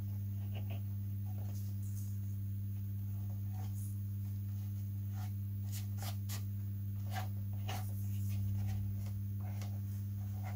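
A steady low hum throughout, with faint, scattered crinkles and light taps of hands handling and pressing tissue paper onto a balsa model wing.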